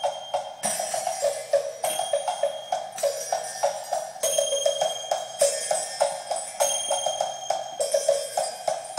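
Recorded music playing through a pair of Klipsch Heresy horn-loaded speakers driven by a McIntosh MC60 amplifier, with a steady percussive beat; it comes across thin, with little bass.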